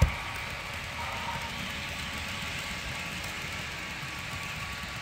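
Sound decoder in a Proto 2000 HO-scale 0-6-0 steam locomotive model playing a steady steam hiss through its small onboard speaker, with one sharp click right at the start.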